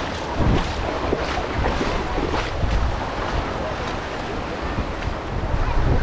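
Small waves washing and splashing in shallow surf, with wind noise on the microphone.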